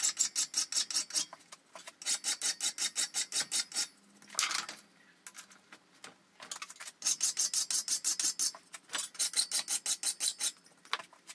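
Flat hand file scraping across the edges of a small steel block clamped in a bench vise, in quick runs of strokes broken by short pauses. This is cleaning up the freshly cut part.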